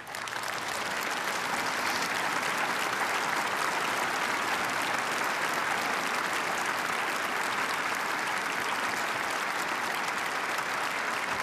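Audience applause: many people clapping, building up quickly within the first second and then holding steady.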